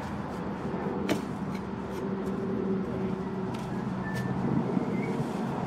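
An engine running steadily at an even pitch, with a few sharp clicks or knocks over it, the clearest about a second in.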